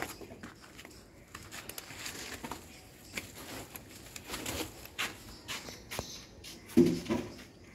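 Cats eating dry kibble off concrete, an irregular run of small crunches and clicks as they chew and pick up the pellets, with a brief louder sound near the end.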